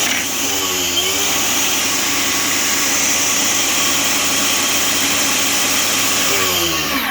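Flex 24V 8-1/4 in cordless table saw running with no load, its blade spinning at full speed. It is switched off near the end and winds down, and the sound drops away.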